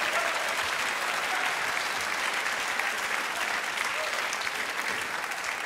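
Theatre audience applauding, a dense steady clapping that slowly eases off toward the end.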